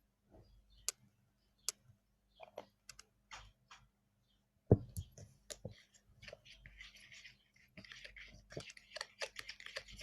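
A utensil tapping and clicking against a container, with one sharper knock about halfway. Then comes steady scraping with quick clicks as the slime's glue-and-water mixture is stirred.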